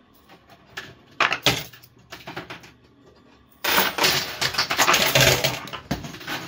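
Coin pusher machine with poker chips and quarters clinking, first as scattered clicks, then from about halfway a dense, loud clatter as a mass of chips tumbles off the pusher shelf.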